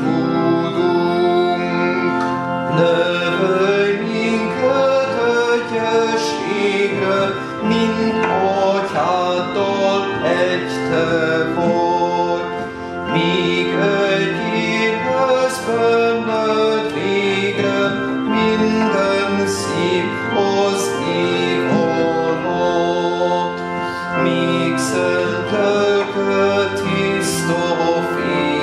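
Organ playing a hymn in slow, sustained chords, with voices singing the hymn along with it.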